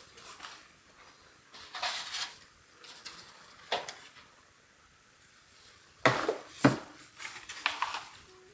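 Kitchenware and utensils being handled: scattered light clinks and taps, with two louder knocks about six seconds in.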